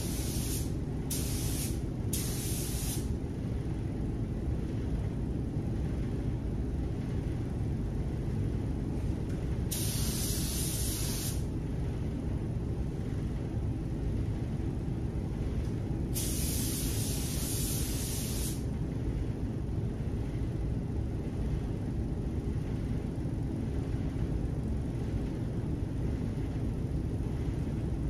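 Tuba TH101AG paint spray gun hissing in separate bursts as its trigger is pulled to lay down base coat: a few quick passes in the first three seconds, a longer one about ten seconds in and another about sixteen seconds in. A steady low background noise runs beneath it.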